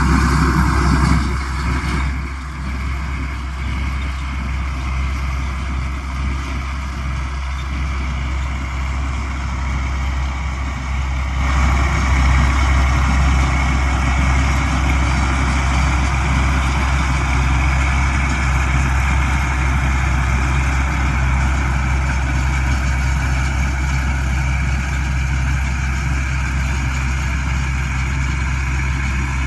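Avtar combine harvester running steadily while cutting paddy, a continuous machine drone. It drops a little about two seconds in and grows louder again around eleven seconds.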